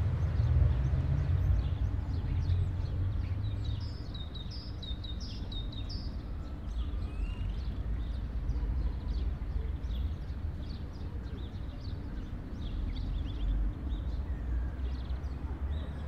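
Quiet urban square ambience: small birds chirping over and over above a steady low background rumble. The rumble is louder for the first few seconds, and the chirping is busiest about four to six seconds in.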